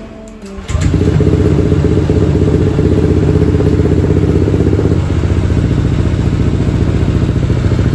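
Honda Click 160's single-cylinder engine through an aftermarket JVT v3 exhaust, coming in abruptly under a second in after a few faint clicks and then running steadily with a deep exhaust note. It is being run after an ECU reset so the ECU can adapt to the new pipe.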